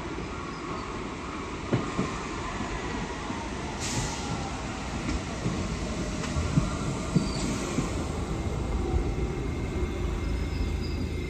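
New York City Subway R68 train pulling into the station and slowing: steady rumble of wheels on rail, a whine that falls in pitch, some wheel squeal, and scattered clacks as the wheels cross rail joints.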